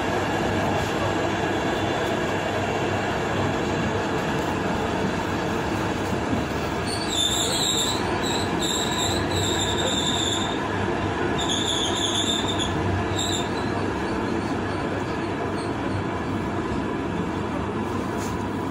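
Passenger train running along the track with a steady rumble. A high-pitched wheel squeal comes in twice around the middle, a few seconds each time.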